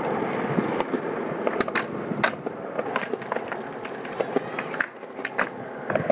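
Skateboard wheels rolling over a concrete skatepark floor, a steady rumble with several sharp clacks. The rumble dips briefly about five seconds in.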